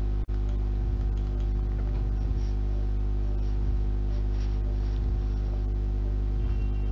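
A steady low hum with many even overtones that does not change, broken only by a brief dropout about a quarter of a second in.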